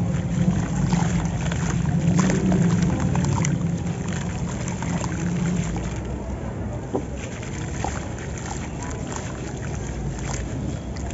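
Water sloshing and dripping in a plastic tub as wet sand-cement chunks are dipped and crumbled by hand, with scattered gritty crackles and small splashes. A low steady rumble lies under the first half and eases about six seconds in.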